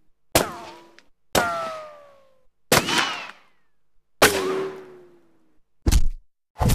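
A series of impact sound effects. Four clanging hits about a second to a second and a half apart each leave a ringing tone that slides down in pitch, and two short dull thuds follow near the end.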